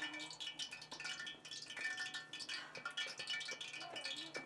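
Metal kitchenware being handled: bowls and a pot lid clinking and ringing with many light clicks.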